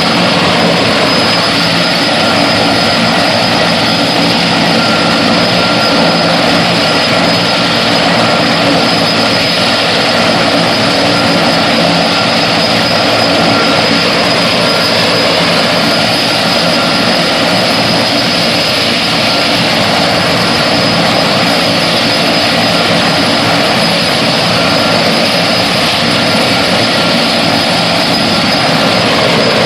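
Large turbine-powered firefighting helicopter running loud and steady, its engine whine held at one high pitch over the rotor noise.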